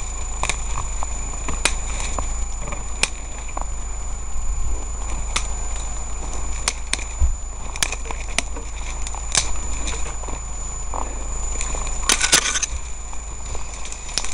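A person running through grass and forest undergrowth with a body-worn camera: rustling of vegetation and footfalls under a low rumble of handling noise, with scattered sharp snaps and a quick rattle of snaps about twelve seconds in.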